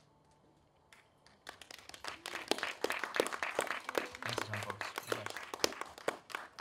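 Audience applauding, starting about a second and a half in after a short hush at the end of an accordion-and-guitar song.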